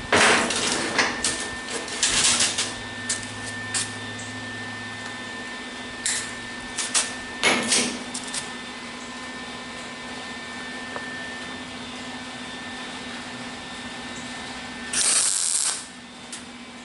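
Welder tack-welding a round sheet-metal patch into a hole in a car body: several short crackling bursts of a second or less, with a longer burst near the end, over a steady machine hum.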